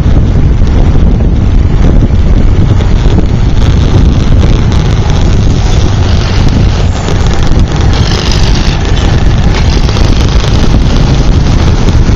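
Loud, steady wind buffeting on the microphone of a moving motorcycle, mixed with its engine and road noise.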